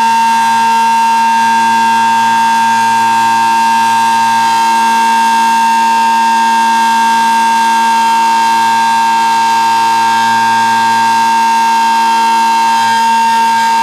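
Large B&M Model 20-AR-10 outdoor warning siren sounding at full speed: one loud, steady high tone with a weaker low tone beneath it.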